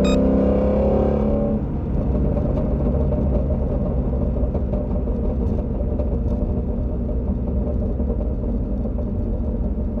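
Ford Shelby GT350R's 5.2-litre flat-plane-crank V8 falling in pitch over the first second and a half as the revs drop, then settling into a steady low drone and rumble while cruising.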